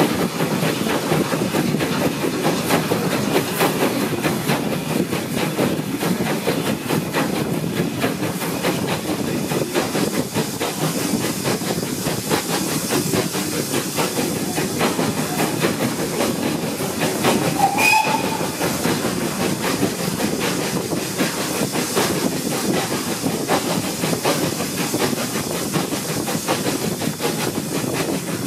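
Steam-hauled heritage train running, heard from an open carriage window: a steady rumble of the train with many quick wheel-on-rail clicks, and one short wavering high squeal a little past halfway.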